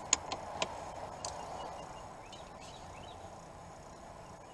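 A few sharp metallic clicks of a torque wrench and socket on the steering wheel's retaining bolt, bunched in the first second or so, as the bolt is torqued.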